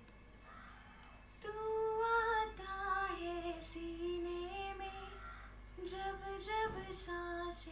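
A woman's sung vocal track played back dry, with its mixing effects (EQ and the rest) switched off. Held, sliding sung notes begin about a second and a half in.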